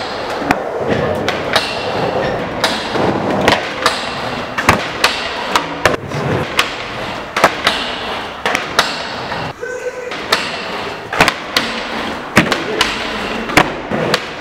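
Skateboard on concrete and a metal handrail: wheels rolling, with a string of sharp knocks and clacks, one or two a second, from the board popping, the trucks hitting and grinding the rail, and the deck slapping down on failed landings.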